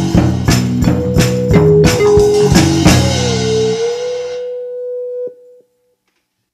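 Closing theme music with a steady drum beat. The beat stops about three seconds in, leaving one held note that fades and then cuts off.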